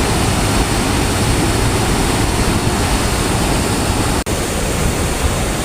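Waterfall in flood, its water rushing in a loud, steady wash of noise. The sound drops out for an instant a little past four seconds in.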